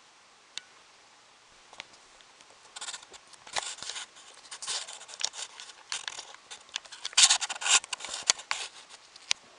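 Quiet at first with a couple of single clicks, then from about three seconds in a run of irregular rubbing, scraping and clicking close to the microphone, like things being handled.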